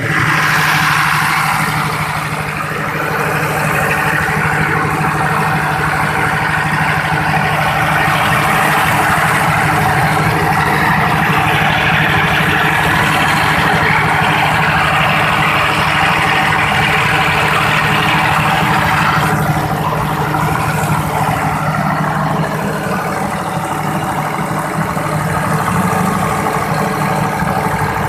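Nissan turbo diesel engine of a 125 kVA generator set running steadily, a continuous loud hum with a hiss on top.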